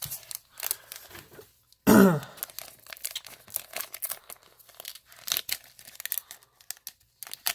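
Foil trading-card booster pack wrapper being torn open and crinkled, a run of short crackling rustles. A brief loud wordless vocal sound with falling pitch about two seconds in.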